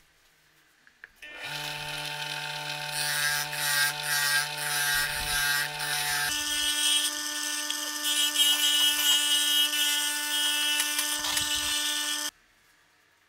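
Disc sander made from an INGCO electric water pump motor, running with a steady hum while wood is held against the spinning sandpaper disc, adding a high rasping hiss. The hum changes pitch abruptly about halfway through and stops suddenly near the end.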